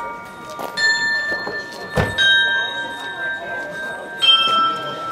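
Cast bells hanging on a foundry display rack, struck one after another: three strikes, each at a different pitch, each ringing on and overlapping the last. The middle strike has a dull knock to it.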